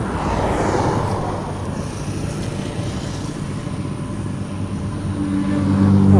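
Road traffic: a passing vehicle's noise swells and fades about a second in, over a steady low engine hum. Near the end another vehicle's engine grows loud as it approaches.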